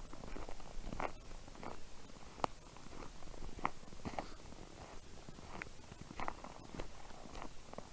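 Footsteps crunching in snow, an irregular series of crunches about one every half second to a second.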